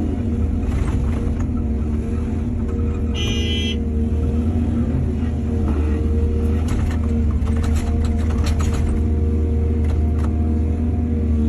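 Excavator's diesel engine running steadily under work, with a short high squeal about three seconds in and bursts of clatter and scraping through the middle as it works the soil.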